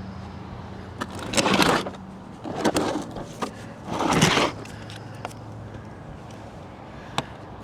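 Handling noises: three short scraping rustles and a few light clicks over a steady low hum.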